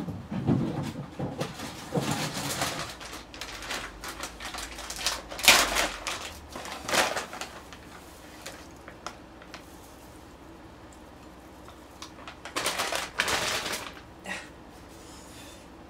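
Close-miked eating sounds: clicks of utensils and food sounds in bursts, with a quieter stretch in the middle.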